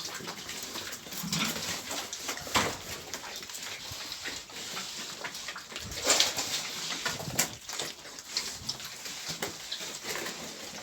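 Pigs grunting, with a few short sharp sounds spread through.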